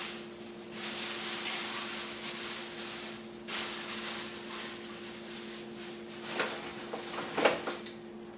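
Plastic bag rustling and crinkling as it is handled, in stretches with two short pauses, with a sharp knock about seven seconds in. A steady low appliance hum runs underneath.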